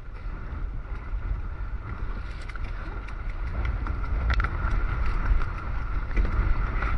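Wind buffeting the microphone and water rushing and splashing along a Hobie 16 catamaran's hull as the boat picks up speed, growing a little louder after about four seconds, with a few brief clicks about four seconds in.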